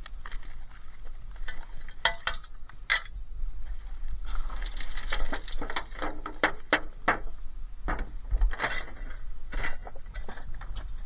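Rummaging through scrap in a skip: irregular clicks, clinks and knocks of small pieces of metal and plastic being picked up and moved, with some rustling between them.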